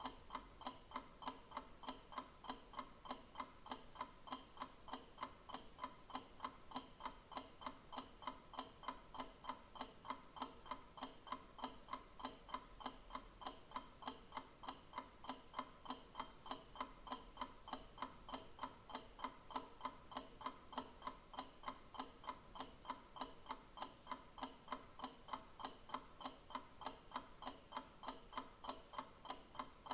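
Clock ticking steadily, about two evenly spaced ticks a second.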